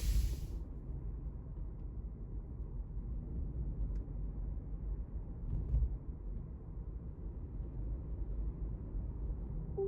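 Steady, muffled low rumble of a vehicle, with almost nothing above the mid range.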